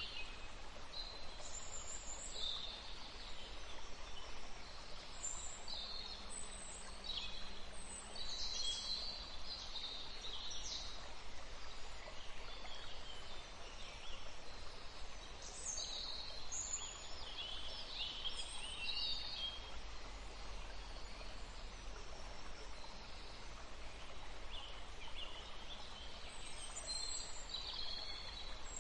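Nature ambience: scattered short, high bird chirps and calls over a steady soft hiss.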